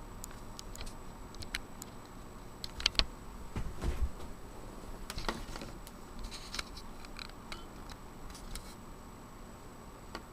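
Handling noise as a laptop motherboard is set down into the notebook's plastic case: scattered light clicks, taps and small knocks of the board and parts against the plastic, with a few louder knocks about three and five seconds in.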